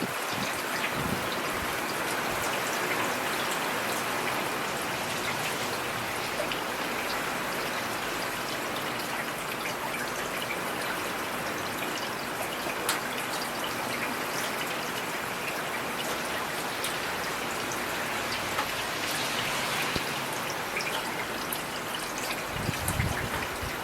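Steady rain falling, with scattered sharp ticks of individual drops striking close by. A brief low rumble comes near the end.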